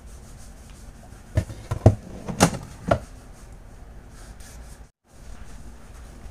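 Four dull knocks about half a second apart over a low room hum, with a brief total cut-out of the sound a little before the end.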